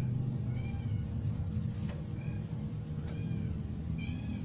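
An animal's short, high-pitched cries, about four of them spaced a second or more apart, over a steady low rumble, with a couple of faint clicks.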